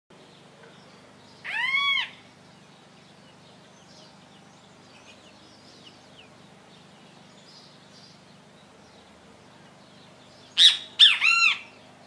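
Great kiskadee calling: one loud arched call a little under two seconds in, then near the end its three-note "bem-te-vi" call.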